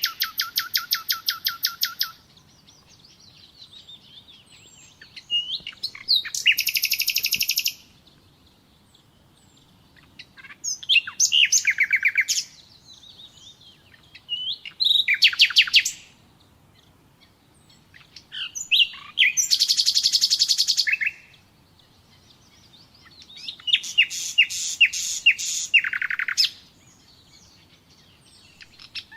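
Common nightingale singing: about six loud phrases of fast repeated, rattling notes, each lasting a second or two, with pauses of a few seconds between them.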